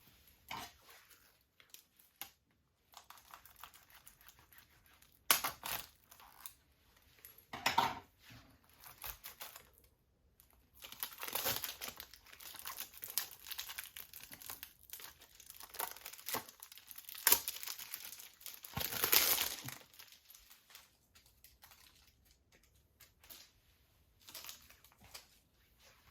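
Plastic shrink-wrap crinkling and tearing as it is peeled off a Blu-ray case, in irregular bursts with a few sharp clicks, the longest stretch of crinkling in the middle.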